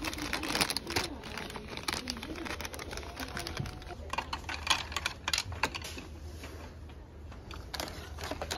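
A run of irregular clicks and knocks, busiest about a second in and again between four and six seconds in, over a low steady hum.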